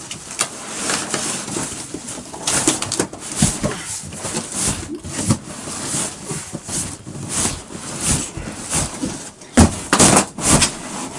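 Long cardboard box scraping, rustling and knocking as a rolled, plastic-wrapped mattress is slid and tipped out of it, with the loudest knocks about ten seconds in.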